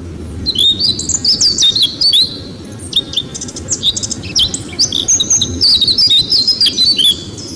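Small songbirds chirping: rapid runs of short, high chirps and twitters, with a brief lull partway through, over a low steady background rumble.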